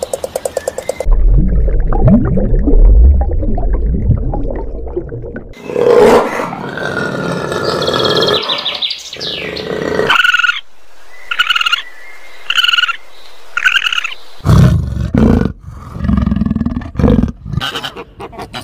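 A string of animal calls: first a deep, low-pitched call lasting several seconds, then four short higher-pitched calls about a second apart, then lower calls near the end.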